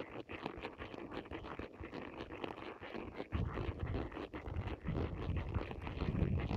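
Horse's hooves on a gravel track: a dense, irregular run of clicks and scrapes. From about halfway, a low rumble of wind on the microphone joins in and grows.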